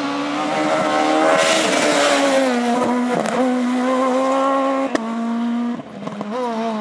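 Renault Clio S1600 rally car's engine running hard at high revs, its note held fairly steady, with a rushing tyre noise swelling about a second and a half in. Near the end the revs drop briefly and pick up again as the throttle is lifted and reapplied.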